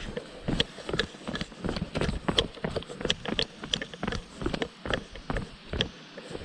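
Footsteps on a stony path: a quick, irregular run of crunches and clicks, several a second.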